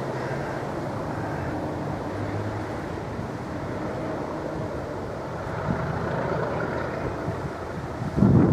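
Class 66 diesel locomotive's EMD two-stroke V12 engine running steadily as it approaches under power, a low drone with wind noise. A little after 8 s a loud gust of wind buffets the microphone.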